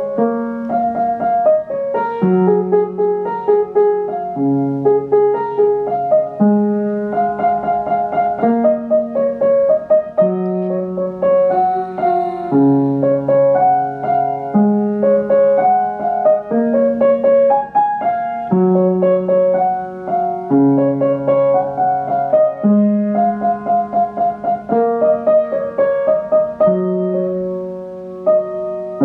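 Upright piano being played by hand at a steady pace, with a bass note changing about every two seconds under quicker notes higher up.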